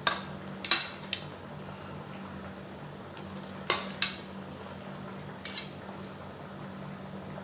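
Metal spoon clacking and scraping against a plastic cutting board and pan as chopped green beans and carrots are pushed off into water. There are sharp clacks near the start and again about four seconds in, over a steady low hum.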